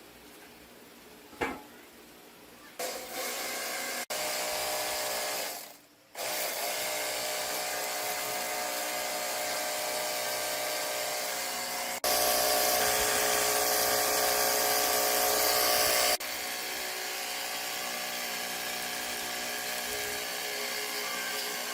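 Handheld electric power tool running at steady speed with a whining hum, starting about three seconds in. It stops briefly around five to six seconds, then runs on, louder for a few seconds in the middle.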